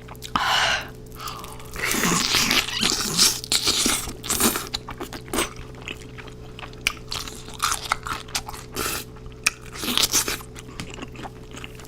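Close-miked biting and chewing of crispy fried chicken, with loud crisp crunches. The crunching is densest a couple of seconds in, then gives way to softer chewing clicks, with a few more crunchy bites near the end.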